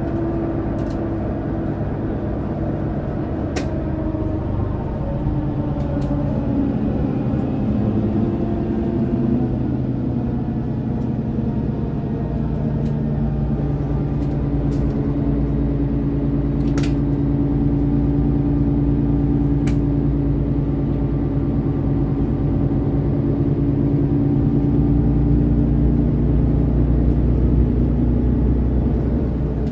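Engine of a Mercedes-Benz O530 Citaro Facelift city bus running under way, heard from inside the passenger cabin; its note shifts about seven seconds in and then holds steady, with a few sharp clicks.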